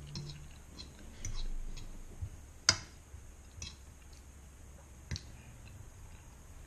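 Metal fork clicking and scraping against a nonstick frying pan while spaghetti is twirled, with one sharp click a little under three seconds in and a few lighter ones after it.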